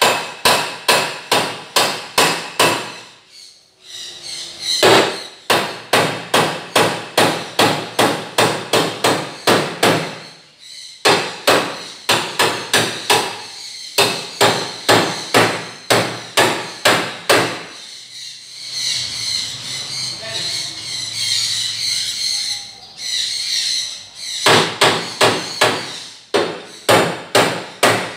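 Fast, evenly spaced hammer blows on a steel pipe frame, about three to four a second, in runs of several seconds broken by short pauses. A few seconds of steady hissing noise replace the blows about two-thirds of the way through, and then the blows start again near the end.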